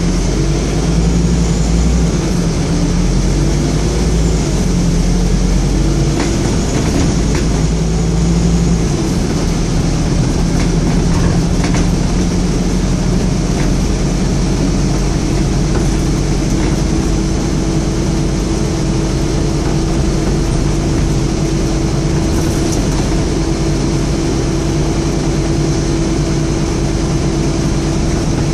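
Scania N230UD double-decker bus's five-cylinder diesel engine running, heard inside the upper deck with body noise. The low rumble is heavier for the first third, and a steady hum comes in about halfway through.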